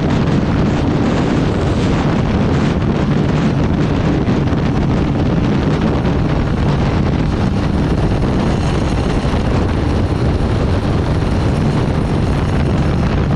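Heavy wind buffeting the microphone at motorcycle top speed, a loud, steady rush. Underneath it, a Honda SP 125's single-cylinder engine runs flat out.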